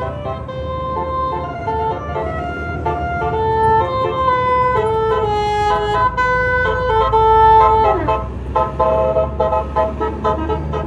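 Bus's Basuri multi-tone telolet horn playing a tune of held notes that step from pitch to pitch, over the steady low hum of the bus engine. About eight seconds in the notes sag and slide downward, then break into a run of quick short toots.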